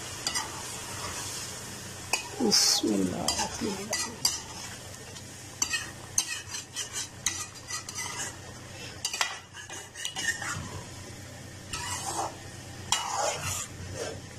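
A metal spoon stirring and scraping through taro slices in a metal pan, with irregular clinks and scrapes against the pan. Under it is a steady sizzle from water just poured into the hot fried masala.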